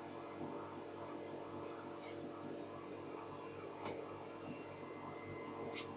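FlashForge Hunter DLP resin printer's Z-axis stepper motor lowering the build platform into the resin vat, a faint steady hum. Two faint ticks come in the second half.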